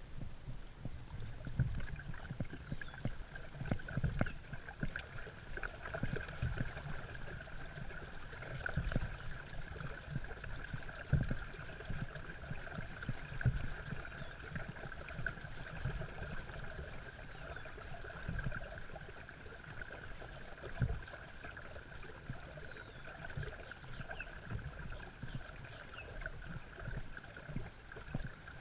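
Water churning and splashing under a hand-cranked wooden paddle wheel with fibreglass-covered blades, with irregular low thumps every second or two. A steady high-pitched tone runs underneath.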